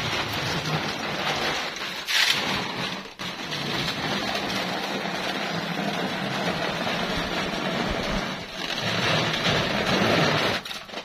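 Hot water pouring from a steel saucepan in a thin stream and splashing onto a heap of rubber balloons, a steady patter with a brief louder burst about two seconds in. The pouring stops shortly before the end.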